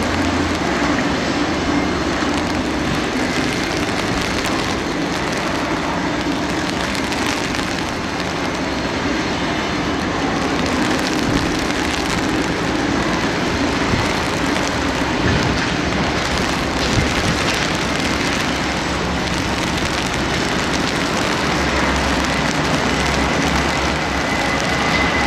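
Steady noise of a Boeing 747-400 jumbo jet being pushed back on a wet apron, mixed with the hiss of rain. A faint high whine comes in near the end.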